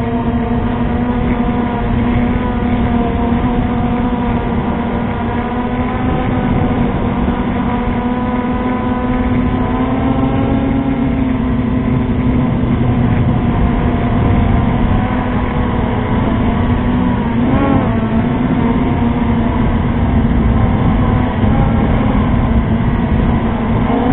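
FPV quadcopter's electric motors and propellers whining steadily, the pitch shifting a little with throttle, with a quick dip and rise in pitch about 17 seconds in.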